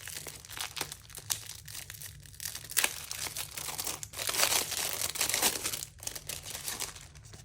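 Packaging being crinkled and torn open by hand to unwrap cash-envelope placeholders, a dense run of crackles that is loudest a little past the middle.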